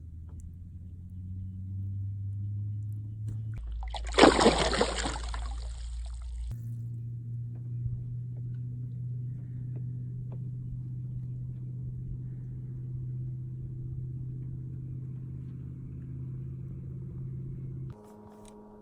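Boat motor running steadily with a low hum that shifts pitch twice. About four seconds in there is a loud rushing, splashing noise lasting a couple of seconds.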